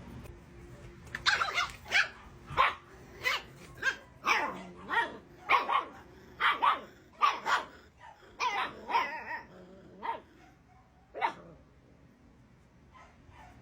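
A puppy barking and yipping: a quick series of short, high barks, some with a growly edge, that keeps up for about ten seconds and then stops.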